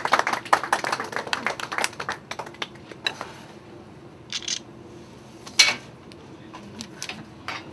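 Dishes and utensils clinking and knocking on a stainless steel counter: a quick flurry of sharp clicks over the first couple of seconds, then scattered knocks, with one louder knock about five and a half seconds in.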